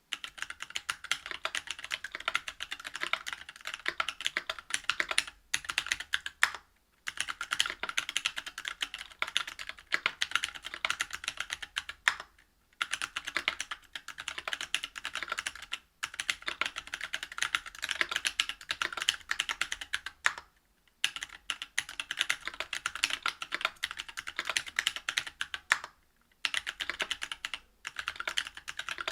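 Steady typing on a Whale 75 mechanical keyboard with stock Cannonkeys Lilac Tactile 65g switches, a brass plate and GMK keycaps: rapid keystrokes in runs of a few seconds, broken by several short pauses.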